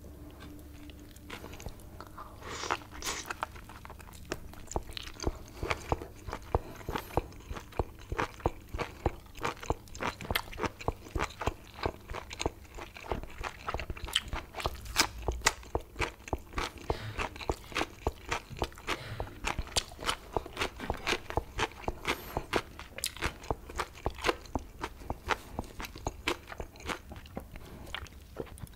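Close-miked chewing of octopus and crunchy yellow pickled radish: a steady run of crisp crunches, about two to three a second, starting about two seconds in.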